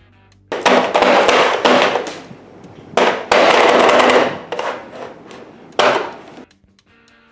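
Three loud crashing bangs, the first two each lasting over a second before trailing off, the third shorter near the end.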